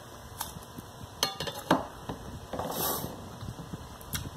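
Small ceramic bowl clinking and knocking against a table and dishes as it is handled and set down: a few sharp clinks, the loudest a little before halfway, and a short hiss around three quarters of the way through.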